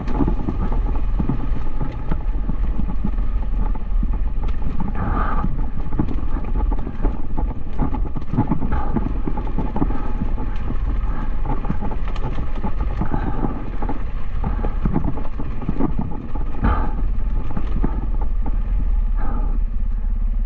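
Dual-sport motorcycle engine running steadily while riding, with wind rushing over the microphone.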